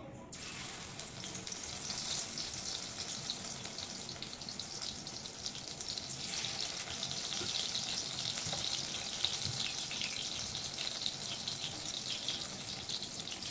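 Batter-coated agati (bakful) flowers sizzling as they deep-fry in hot oil in a kadai. The sizzle grows louder about six seconds in.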